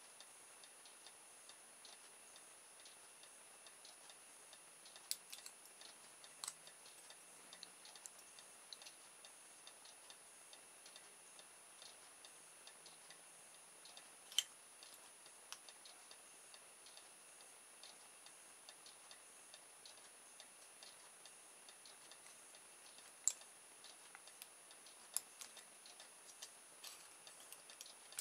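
Scissors cutting thin aluminium drinks-can sheet: faint, scattered snips and clicks, with a handful of sharper ones spread through, over near-silent room tone and a faint steady high-pitched whine.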